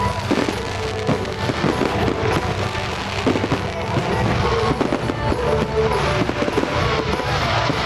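Fireworks display going off in a dense barrage: a continuous crackle of many quick pops and bangs.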